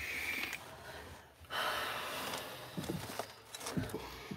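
A person smoking: a breathy draw that ends about half a second in, then a long exhale of smoke from about a second and a half in. A few soft knocks follow near the end.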